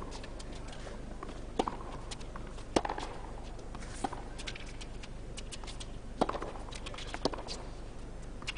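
Tennis rally on a hard court: sharp pops of racket strings striking the ball and the ball bouncing, coming every second or two, over a hushed stadium crowd.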